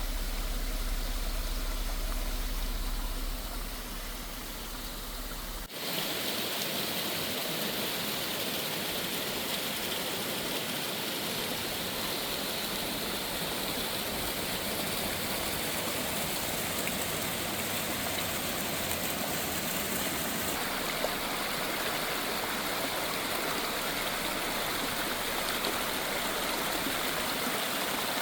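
Low road rumble of a car for the first few seconds, then an abrupt change to the steady rush of water spilling over rocks in a mountain cascade.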